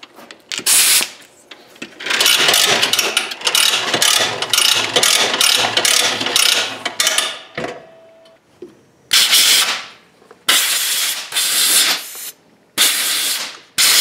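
Shop air hose pulled off a spring-loaded reel, its ratchet clicking rapidly for several seconds. Then about four short blasts of compressed air from an air blow gun, blowing wire-brushed corrosion off the battery terminals.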